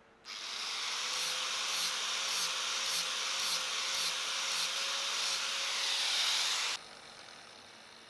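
Power tool working metal: a steady harsh hiss with a faint beat about twice a second, starting sharply and cutting off suddenly near the end.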